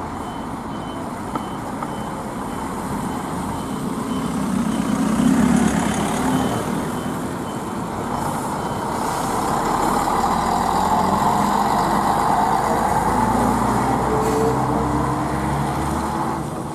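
Diesel engines of Ikarus buses running and pulling away, the rumble swelling twice as buses move off and pass. A fast, high-pitched beeping repeats at an even pace and stops about halfway through.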